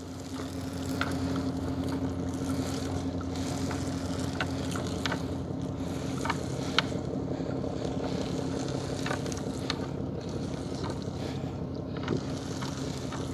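Small boat engine running steadily with a low, even hum, with a few scattered light clicks.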